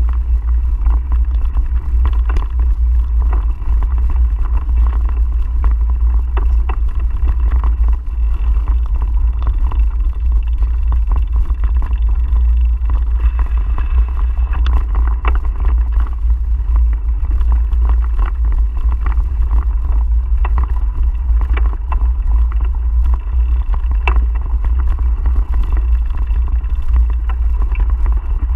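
Wind buffeting the microphone of a camera riding along on a mountain bike, a loud steady low rumble, with frequent small knocks and rattles as the bike rolls over the bumpy dirt trail.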